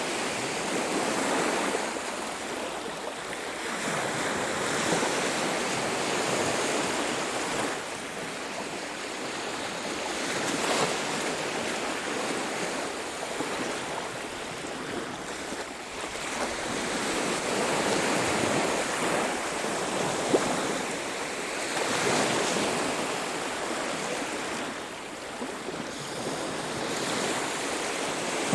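Sea waves breaking and washing up a beach, the surf swelling and easing every few seconds, with some wind.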